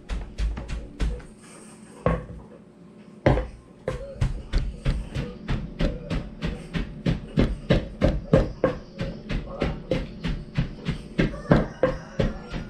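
Pestle pounding chopped herbs in a large mortar: a steady run of thuds, about three to four a second, with a pause of about two seconds near the start before the strokes resume.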